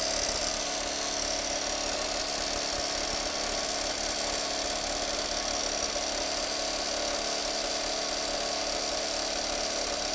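Skoda Octavia 1U's 1.8-litre four-cylinder petrol engine running steadily with the timing-belt cover off. Its timing belt flaps because the tensioner no longer holds it tight, a defect that risks engine damage.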